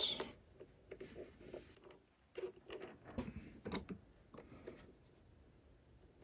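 Faint, irregular small clicks and scrapes of a screwdriver backing out a screw and of a small circuit board being handled and pulled from a plastic turntable base.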